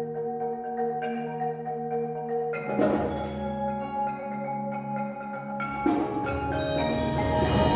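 Marimba and mallet-percussion ensemble playing sustained chords. The chord changes with a struck accent about three seconds in and again near six seconds, and the sound grows fuller and louder toward the end.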